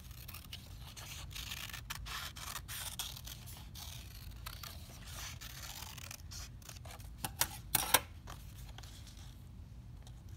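Scissors snipping through construction paper, a run of short cutting clicks with paper rustling, and a few sharper, louder clicks about three quarters of the way through.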